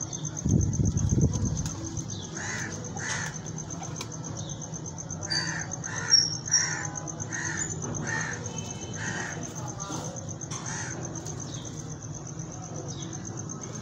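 Crows cawing repeatedly in the background, with a run of caws about two a second in the middle, over a steady high-pitched whine. A brief low rumble near the start.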